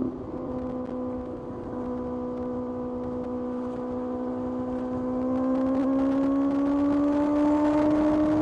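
Kawasaki ZX-6R's inline-four engine running under way at a steady pitch, then gradually pulling higher in revs and getting louder from about five seconds in.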